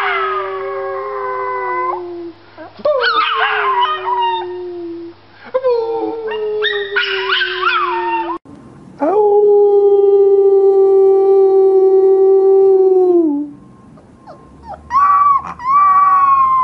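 Puppies howling. A small golden-tan puppy gives three howls, each starting high and sliding down. After a cut comes a long, level howl that drops at its end, and near the end a husky puppy's higher howl.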